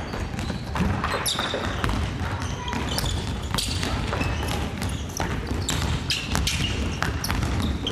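Basketballs bouncing on a wooden gym floor in a large hall, many separate bounces, with footfalls and a few short high squeaks of shoes on the floor.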